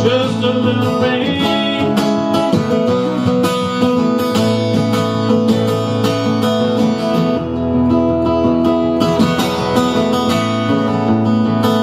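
Instrumental passage of a country-style trop rock song: acoustic guitar strumming in a steady rhythm over a bass line, with no lyrics sung.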